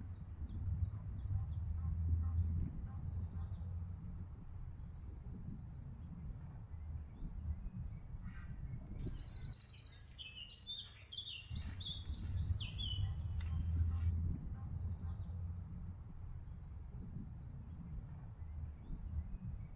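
Songbirds singing: repeated short chirps and trilled phrases, busiest about halfway through, over a steady low rumble.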